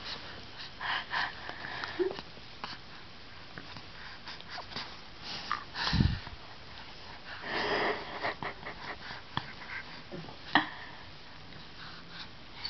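Close breathing heard as short sniffs and wheezy breaths at irregular intervals, with small clicks and a single thump about six seconds in.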